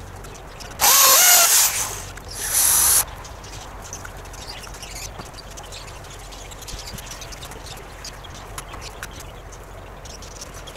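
Power drill run in two short bursts against the wooden frame, the first about a second long with its motor pitch rising and falling, the second shorter; after that only faint light knocks of timber being handled.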